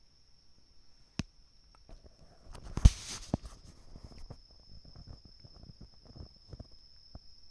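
A sudden loud sneeze about three seconds in, followed by a few seconds of quick scuffling clicks, over a steady high-pitched whine.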